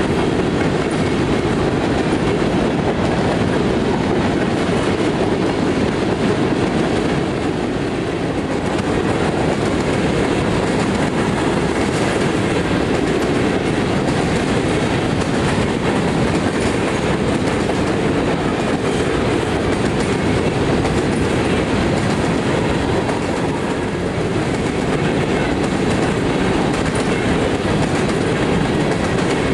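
Norfolk Southern coal train's hopper cars rolling steadily past, close by: the continuous loud noise of steel wheels running on the rails.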